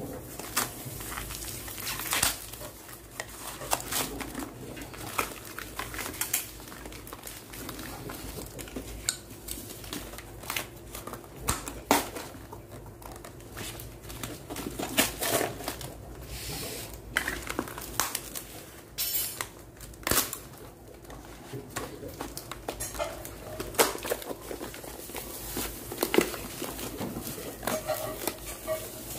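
Cardboard packaging being cut with scissors and torn and crumpled away from a battery, with scattered sharp snips, clicks and scrapes over continuous rustling.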